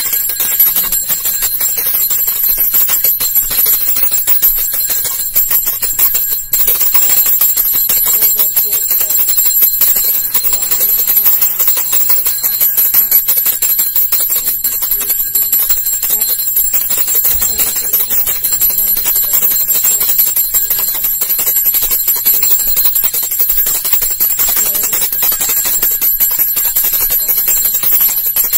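A hand bell rung fast and without a break, a loud, continuous jangling ringing.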